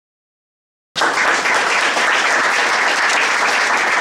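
Audience applauding, starting abruptly about a second in after silence.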